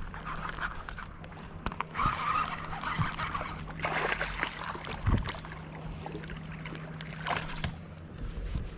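Fishing boat on a lake: a steady low motor hum that stops near the end, with water sloshing against the hull and scattered small knocks and clicks.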